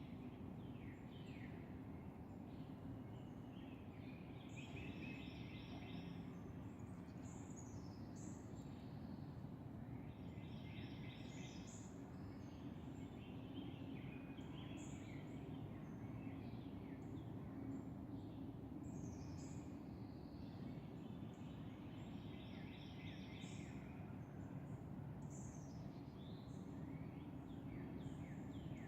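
Wild birds chirping and calling throughout, in clusters of short, quick falling notes, over a steady low background hum.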